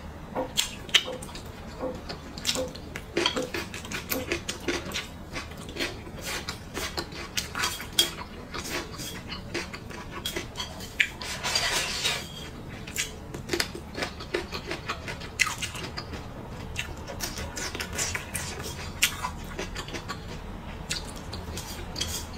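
Close-miked mukbang eating: wet chewing and smacking mouth clicks, with taps of wooden chopsticks on a glazed ceramic plate. About halfway through comes a longer slurp as she sucks food from the chopsticks.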